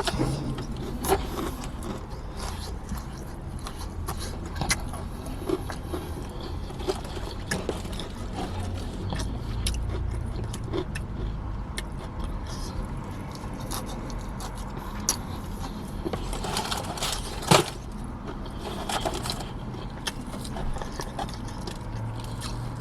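Someone chewing and biting into crunchy fried chicken close to the microphone: scattered crunches and mouth clicks over a steady low hum, with one sharp loud click about three-quarters of the way through.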